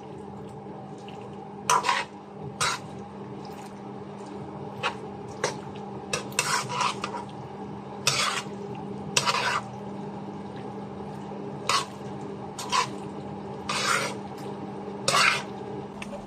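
A spatula scraping and knocking against a pan in about a dozen irregular strokes as beef and onions are stir-fried, over a steady low hum.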